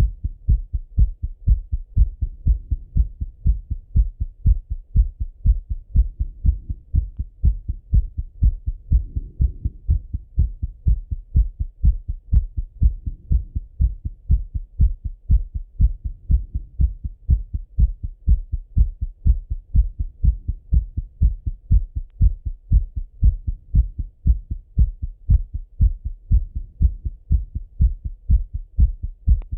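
A man's heart thumping, heard through a Littmann stethoscope: a fast, steady, even run of low thumps, the heart still beating hard after a run.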